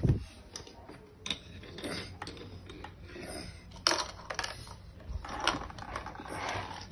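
Plastic clicks and knocks of a toy excavator's arm and bucket being worked by hand, scattered and irregular, with louder clacks about four and five and a half seconds in.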